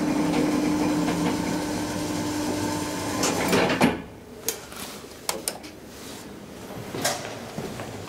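Cibes platform lift's drive motor humming steadily while the car travels, then stopping with a short clatter about four seconds in. A few separate clicks and knocks follow.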